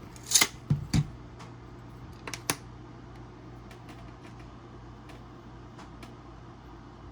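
Small parts and packaging handled on a desk: a quick cluster of clicks and rustles in the first second, a few more sharp clicks about two and a half seconds in, then only faint scattered taps over a steady low hum.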